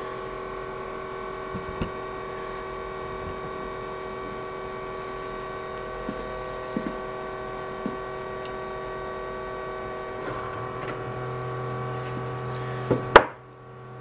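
Home-made 3D-printed impeller fume extractor, driven by an RS-540 brushed electric motor, running with a steady whine of several tones, with a few light ticks. Near the end a sharp click, and the whine drops away.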